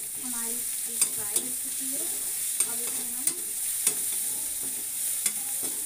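Vegetables frying in a steel kadhai on a gas stove: a steady sizzle while they are stirred, with sharp clicks of the spatula against the pan every second or so.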